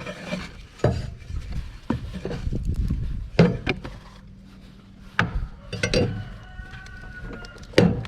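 Irregular knocks and scrapes against the underside of a zero-turn mower's metal deck as caked grass is cleared off by hand or with a tool.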